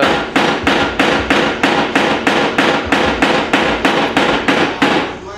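A hammer striking metal in a fast, steady rhythm of about four blows a second, stopping just before the end.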